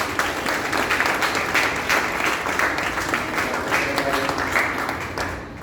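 Congregation applauding with many hands clapping, dying away near the end.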